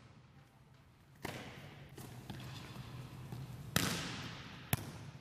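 Volleyball smacking off players' forearms in bump passes, four sharp hits with the loudest about three-quarters of the way through, each ringing out in a reverberant gym, over a steady low hum.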